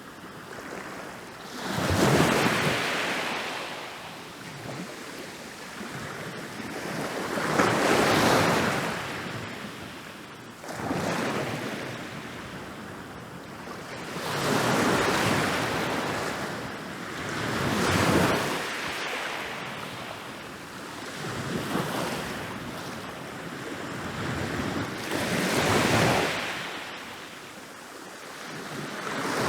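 Waves rolling in and breaking on a beach, each wash of surf rising to a crash and fading, about every three to six seconds.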